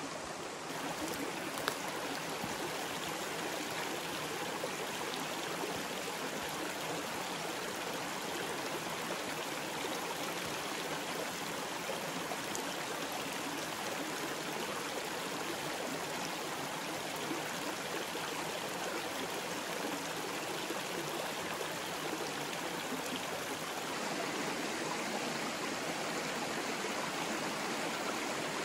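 Water of a small creek waterfall running steadily, a continuous even rush that grows a little louder about a second in and again near the end.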